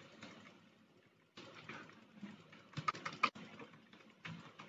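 Faint keystrokes on a computer keyboard: typing in short, irregular runs of clicks with pauses between, the sharpest clicks a little past the middle.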